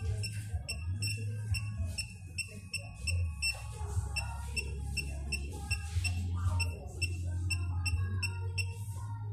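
Background music with a steady beat of bright, ticking notes, about three a second, over a low hum.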